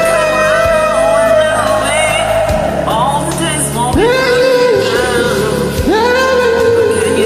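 Karaoke duet singing over an R&B backing track: long held sung notes, each swooping up into its pitch, with short runs between them.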